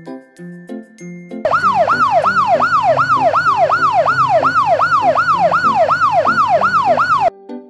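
Cartoon police car siren: a fast electronic yelp sweeping up and down about two to three times a second. It starts about a second and a half in and cuts off abruptly near the end, over light children's background music.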